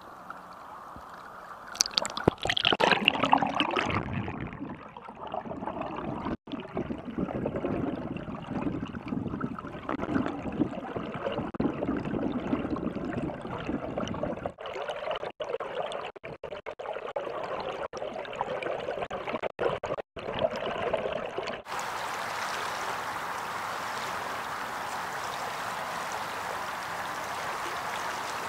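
Stream water heard through a camera at and below the surface: splashing about two seconds in, then muffled gurgling and rushing of the current as it is heard underwater. About three-quarters of the way through it changes abruptly to the steady, even rush of the stream flowing.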